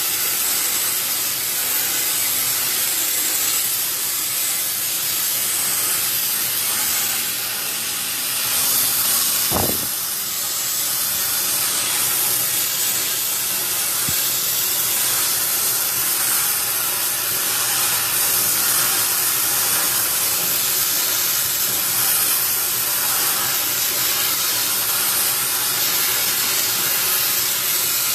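Steady loud hiss, strongest in the high range, with one dull thump about ten seconds in.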